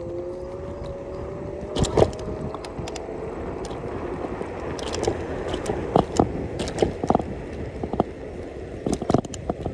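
A small vehicle's motor whine, two thin tones rising slowly in pitch over the first three seconds and then fading, under a steady rumble of travel along a paved path. Sharp knocks and rattles cut through, the loudest about two seconds in and around six and nine seconds, as it rolls over cracked pavement.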